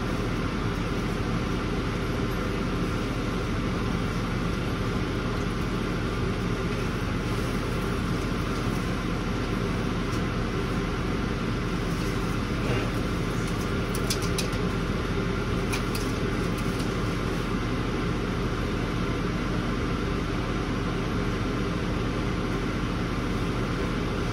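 A machine running with a steady hum and several steady tones, without any change in speed. A few light clicks come just past halfway.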